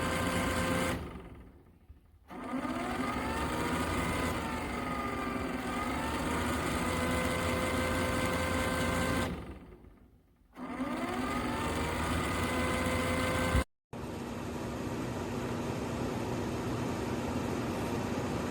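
Electric fan motor running with a steady whine. It winds down twice, then starts again, with the whine rising as it spins back up.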